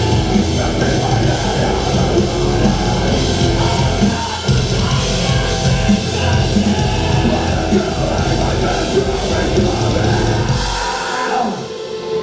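Live heavy metal band playing loud through a club PA: distorted electric guitars, bass and a drum kit with steady drum hits. About a second before the end the bass and drums drop out as the song stops.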